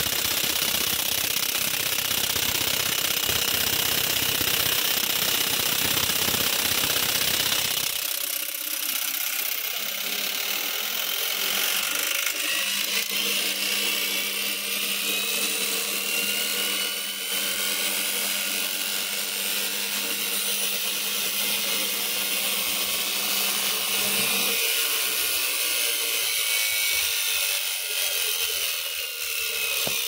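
IFB front-load washing machine's drum motor running and sparking: a harsh, rapid rattling for about eight seconds, then a steadier hum with high whining tones that drift in pitch.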